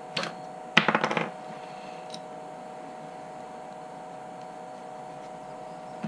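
Sharp plastic clicks and rattles from a yellow XT-90 battery connector being handled: one click just after the start, then a quick cluster of clicks about a second in, and a faint tick shortly after. A steady faint electrical hum runs underneath.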